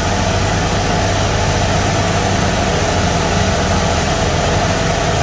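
Kubota DC70H combine harvester's diesel engine running steadily at a low, even pitch as the tracked machine drives away.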